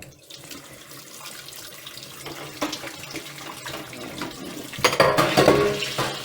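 Water running from a sink tap while a desk fan's blades are swirled and rinsed under it: a steady rush, louder for a second or so about five seconds in.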